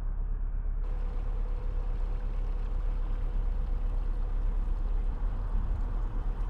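Narrowboat's diesel engine running steadily at cruising pace, a low, even rumble. A faint steady tone joins in about a second in.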